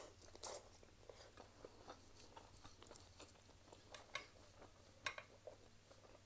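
Faint chewing of a mouthful of ramen noodles: soft wet mouth clicks and smacks, with a sharper click about five seconds in.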